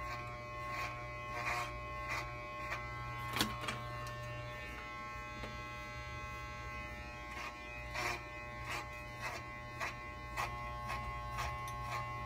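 Corded electric hair clippers run with a steady buzzing hum while cutting bulk out of a short synthetic wig. Scattered short clicks sound over the hum.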